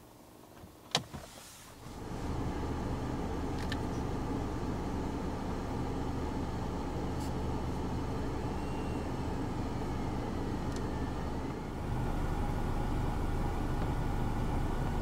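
A sharp click about a second in, then from about two seconds in the steady running sound of a 2016 Skoda Superb's 2.0 TDI four-cylinder diesel engine.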